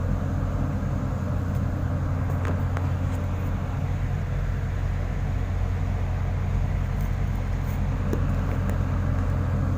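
An engine running steadily at a constant speed, a low drone with a few faint clicks over it.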